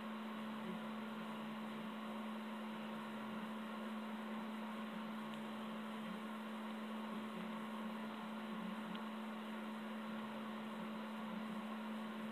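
A steady, unchanging electrical hum with a faint hiss underneath; no kitten squeaks stand out.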